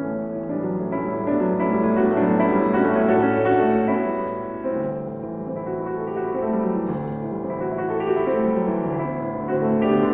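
Solo piano music, a slow piece with notes and chords changing every second or so.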